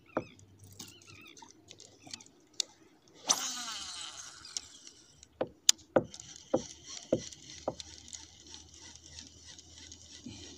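Baitcasting reel: a whir that fades as the spool pays out line on a cast about three seconds in, then the reel's steady, evenly pulsing whir as it is cranked on the retrieve. Scattered sharp knocks of the rod and hands against the kayak run through it.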